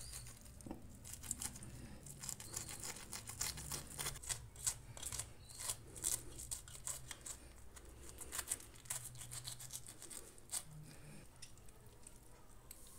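Knife scraping and slicing through goat head skin and flesh on a wooden board, a quick run of scratchy rasps and tearing.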